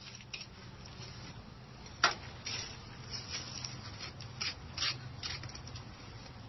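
Short, irregular scraping and scratching strokes of a hand tool worked along the joints of a stone veneer wall, with one sharper click about two seconds in. A low steady hum runs underneath.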